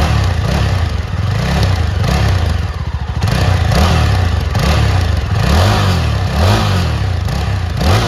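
Yezdi Scrambler's single-cylinder engine revved through its exhaust in a run of quick throttle blips. The pitch rises and falls about once or twice a second, with a brief drop in revs about three seconds in.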